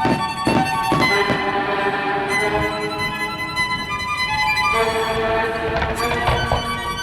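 Music led by a violin playing sustained melodic notes, with a few sharp hits mixed in.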